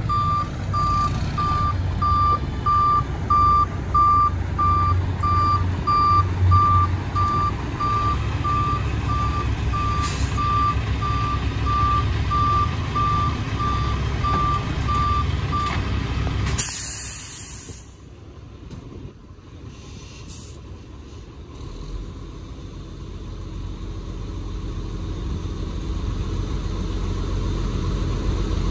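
Backup alarm on a Mack Granite roll-off truck beeping steadily as it reverses, over the rumble of its diesel engine. A little past halfway the beeping stops and a sharp hiss of air brakes being set follows. The engine then drops to a quieter idle that slowly grows louder.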